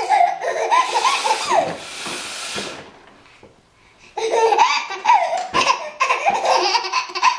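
Baby laughing in belly laughs, broken about two seconds in by a woman blowing her nose, a short rushing blow. After a brief lull the laughter breaks out again about four seconds in, over more nose-blowing noise.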